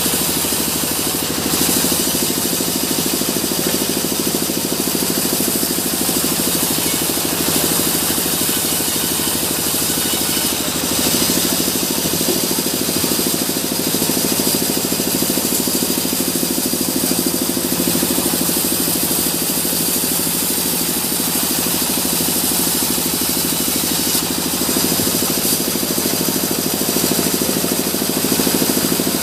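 Sawmill log bandsaw running steadily as logs are sawn: a continuous machine drone with a strong high hiss, the level barely changing.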